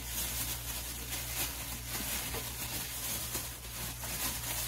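Plastic bag crinkling and rustling as raw chicken pieces are squeezed and shaken inside it by hand to coat them in powder for karaage, over a steady low hum.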